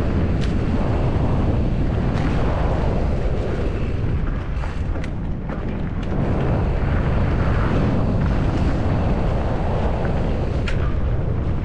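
Wind rushing over the camera microphone and mountain bike tyres rumbling on a rough trail during a fast descent. A few sharp knocks of the bike over bumps cut through, the loudest near the end.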